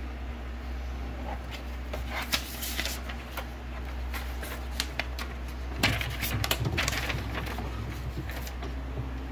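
HP ENVY Photo 7858 all-in-one printer feeding a sheet through its document feeder, with clicks and scraping rattles. About six seconds in, a motor starts running and further clicks follow.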